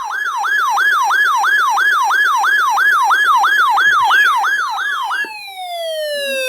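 Siren yelping, its pitch sweeping up and down about three times a second, then just after five seconds in switching to one tone that glides steadily down in pitch. It sounds as an alert signal ahead of a spoken severe weather warning.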